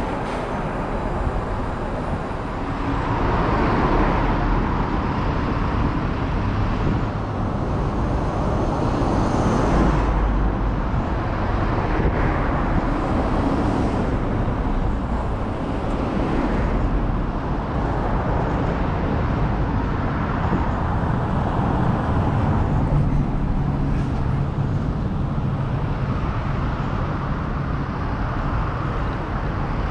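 Road traffic: a steady wash of engine and tyre noise from cars and trucks, swelling as vehicles pass every few seconds.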